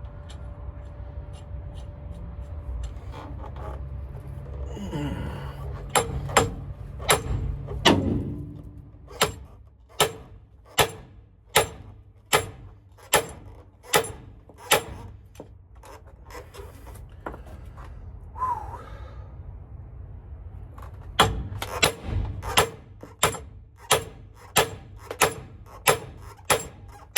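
Hammer striking metal in a steady rhythm, about one blow a second, while driving a driveshaft center bearing; two runs of blows with a pause of several seconds between them.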